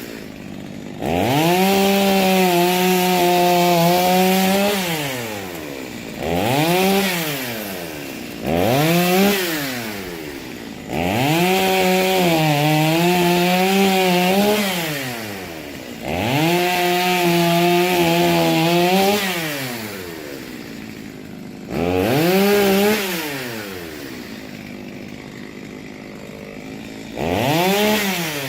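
Stihl MS 230 C two-stroke chainsaw revved repeatedly from idle to full throttle, cutting wood. Some revs are short blips; several are held steady for about three seconds before the engine drops back toward idle.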